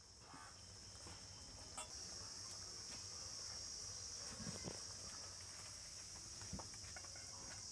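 Insects chirring steadily and high-pitched, growing stronger about two seconds in, with a few soft knocks as a metal kadai is lifted off a clay stove and curry is poured into a steel bowl.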